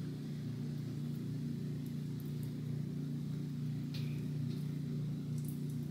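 Steady low hum of a running machine, several even tones held without change, with a couple of faint short clicks about four and five and a half seconds in.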